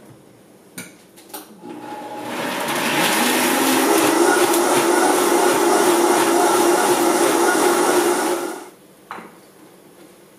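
Countertop blender pureeing cooked corn, mushroom and onion soup. A couple of clicks as the lid goes on, then the motor starts about two seconds in, speeds up, runs steadily for about five seconds and winds down near the end.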